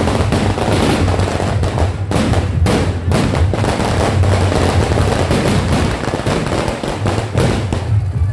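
A string of firecrackers going off in a long run of rapid, crackling pops, ending near the close.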